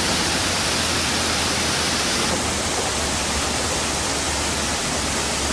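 Waterfall rushing: a loud, steady hiss of falling water, with a slight change in tone about two seconds in.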